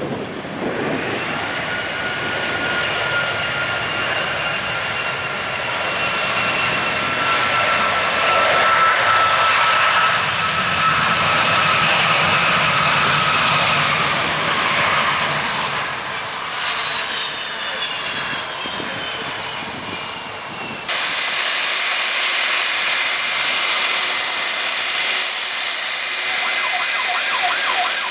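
Airliner engines running with a steady noise and high whine tones that slowly fall in pitch. About 21 s in, the sound cuts abruptly to another stretch of engine noise with a higher steady whine.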